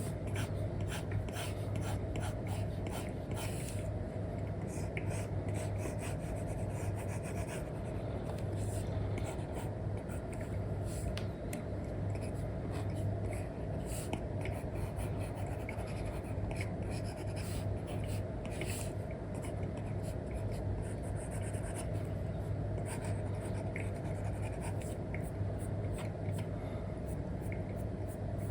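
Stylus nib tapping and scratching on a tablet screen with a paper-like film: an Apple Pencil 2 with an Elecom tip making many short strokes and taps. Under it runs a steady low hum.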